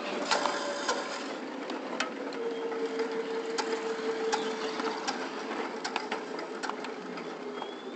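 Running gear of a 7.5-inch gauge live steam locomotive clattering along the track, with scattered sharp clicks from the wheels on the rails. A steady tone runs through the middle, slowly dropping in pitch.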